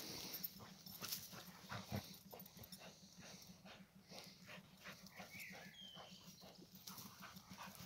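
An American Staffordshire terrier and a border collie puppy play-wrestling, heard faintly as scattered scuffles and short dog sounds. A brief high whine comes about five seconds in.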